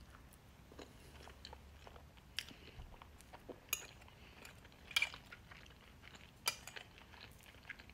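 Close-up, quiet chewing of a mouthful of pancake, with soft mouth noises and a few short sharp clicks.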